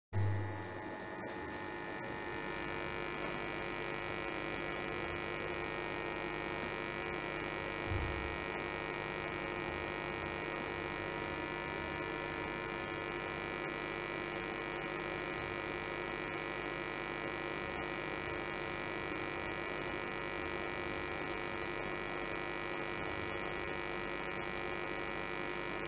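Steady electrical hum made of several constant tones over a faint hiss, with no distinct needle clicks. There is a soft low thud at the start and another about eight seconds in.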